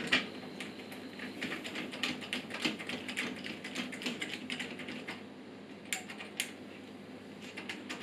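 Hand screwdriver driving a screw into the steel frame of a PC case, giving a fast, irregular run of small clicks and scrapes. The clicks thin out after about five seconds, with two sharper clicks shortly after.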